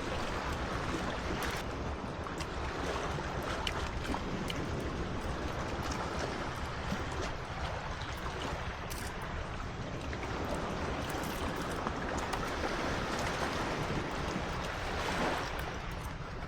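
Ocean waves washing onto a beach: a steady rush that swells and eases every few seconds.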